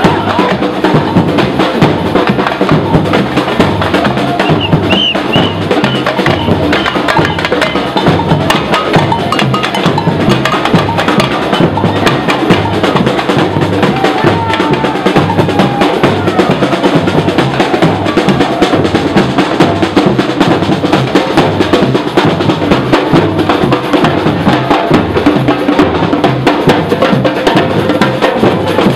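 Live percussion group of surdo bass drums and snare drums playing together in a steady, driving samba-style rhythm.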